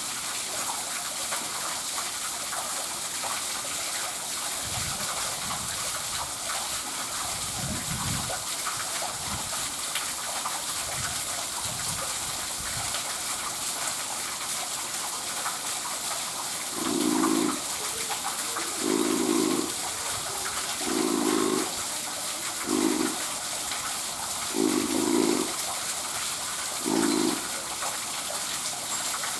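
Spotted seal making rhythmic snore-like sounds, one roughly every two seconds, over steady rushing water. In the first half the sounds are fainter and lower; about halfway through six louder ones follow.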